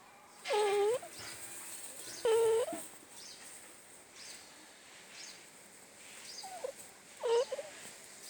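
Dog whining in short calls, about four in all: two louder ones in the first few seconds, then a faint short one and a louder one near the end. Each call is about half a second long and dips and rises in pitch.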